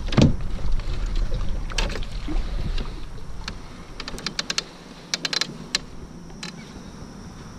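Clicks and knocks of fishing rods, a reel and gear being handled on the molded deck of a small round boat, with a quick run of sharp clicks in the middle. A low rumble underneath fades after about four seconds.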